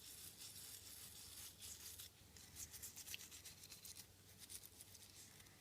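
Toothbrush bristles scrubbing a phone logic board wet with isopropyl alcohol: faint, rapid scratchy brushing strokes, busier in the first couple of seconds and lighter after.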